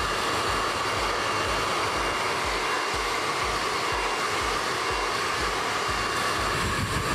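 Handheld hair dryer running steadily, a rush of air with a constant whine in it.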